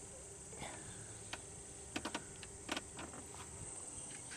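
Light metallic clicks, about half a dozen close together, as hydraulic roller valve lifters are worked out of their bores in a GM 3.4-litre V6 engine block by hand, over a steady high hiss.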